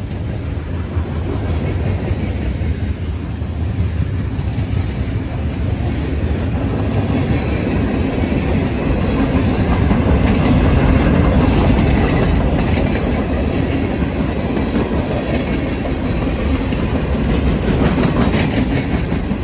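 Freight train rolling past close by: a steady heavy rumble of loaded freight cars with steel wheels clicking over the rail joints.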